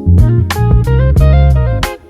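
Fender Japan E-serial Precision Bass played in a line of plucked notes, over regular sharp percussive hits about every 0.7 seconds; the sound drops out briefly near the end.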